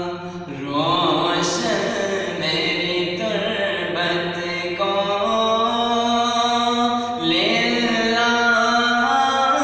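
A man's unaccompanied voice chanting an Urdu naat, a devotional poem in praise of the Prophet, in long held notes that waver and bend in pitch, with short breaths between phrases.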